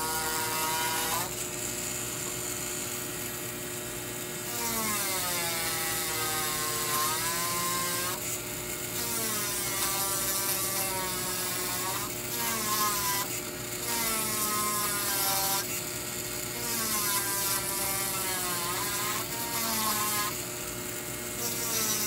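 Handheld rotary micromotor drill (a 30,000 RPM manicure drill) with a diamond bur engraving deep stripes into a metal fork. Its whine sags in pitch and recovers again and again as the bur bites into the metal, over a gritty grinding hiss.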